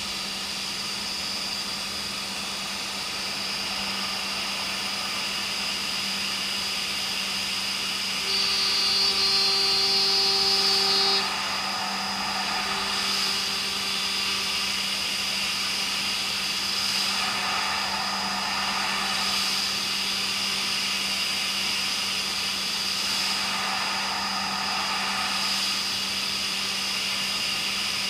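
CNC machining centre milling H13 tool steel: a steady spindle whine with cutting noise over it. About a third of the way in, a louder pitched ring lasts about three seconds, and after that the cutting noise swells every five or six seconds.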